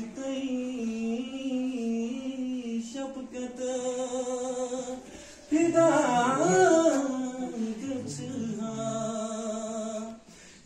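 A man singing unaccompanied, holding long wavering notes. After a brief pause about five seconds in, he comes back louder and higher with a run of quick ornamented turns.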